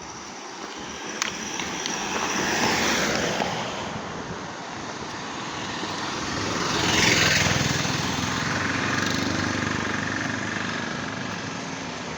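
Road traffic passing: two motor vehicles go by, one about three seconds in and a louder one about seven seconds in, each rising and fading, with an engine still running afterwards.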